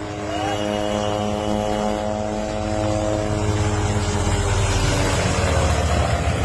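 Light helicopter flying low and coming closer: a steady pitched engine drone, with the low rotor noise growing louder through the second half.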